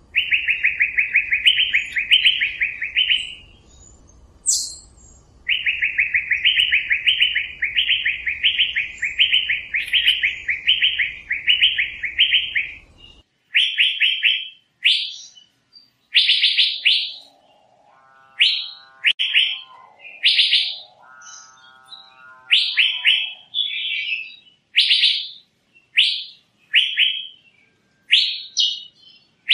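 Asian fairy-bluebird calling. It gives long runs of rapid, repeated chattering phrases, then a pause, then a string of short, sharp whistled notes, with a few lower buzzy calls mixed in about two-thirds of the way through.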